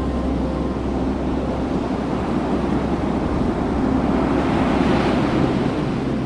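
Ocean surf washing onto the beach, with wind buffeting the microphone; a wave swells and breaks about four to five seconds in.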